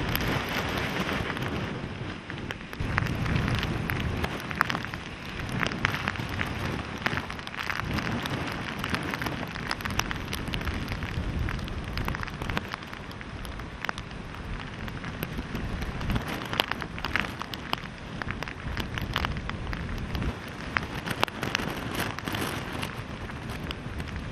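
Heavy hurricane rain with gusty wind: a steady wash of rain, many sharp raindrop hits, and uneven surges of low rumble.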